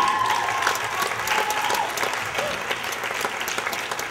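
Audience applauding at the end of a scene, a dense patter of many hands clapping. A voice calls out a held cheer over it in the first two seconds.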